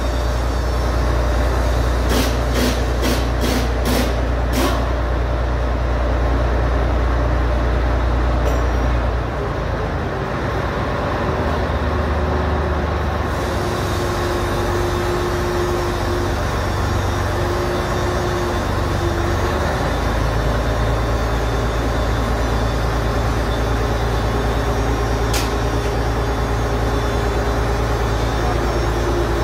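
Steady low drone of a heavy engine or machine running, which changes in pitch and level about nine seconds in and again about twenty seconds in, with a held higher tone in between. A quick series of sharp clicks comes about two to four seconds in, and one more near the end.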